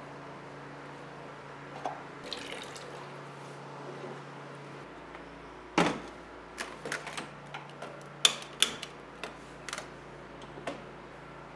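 Kitchen sink work: water splashing briefly, a heavy knock, then a run of short clinks and knocks of dishes or utensils, over a steady low hum.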